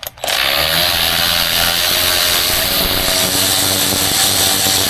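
Cordless power tool running steadily as it spins out a driveshaft bolt, starting just after the beginning and cutting off suddenly at the end.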